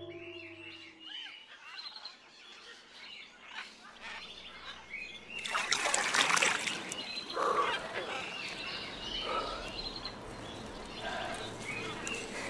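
Birds chirping, with the last music chord fading out at the start. From about five and a half seconds in, a hand splashes in pond water for a couple of seconds.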